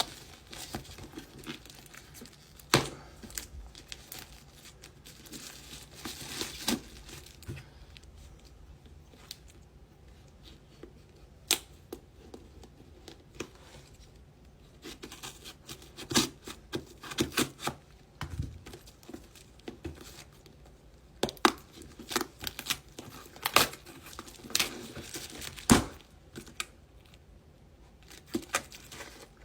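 A package being opened by hand: irregular tearing and crinkling of packaging, with scattered sharp clicks and rustles.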